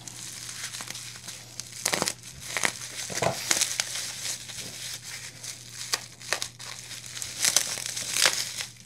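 Packaging crinkling as it is unwrapped by hand, with irregular sharp crackles.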